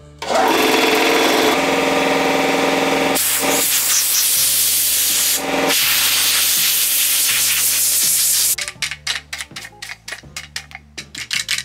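An electric air compressor switched on and running with a hum, then compressed air hissing hard from a blow gun for about five seconds, with a brief break, as it blows grime off a chainsaw clutch cover. Near the end comes a quick series of stiff-brush scrubbing strokes.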